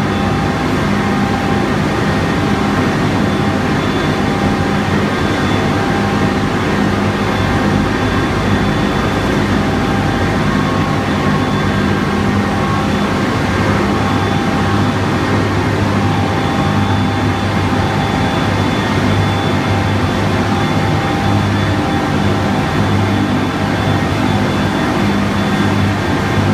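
Goeweil LT Master baler-wrapper running steadily, a constant loud industrial machine noise with a low hum and a faint high whine.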